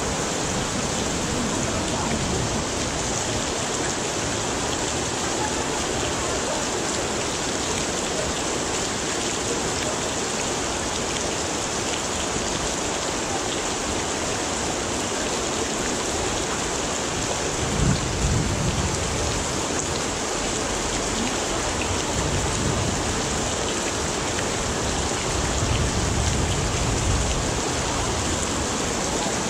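Heavy tropical rain pouring down in a steady, dense hiss. Low rumbles swell up twice, about two-thirds of the way through and again near the end.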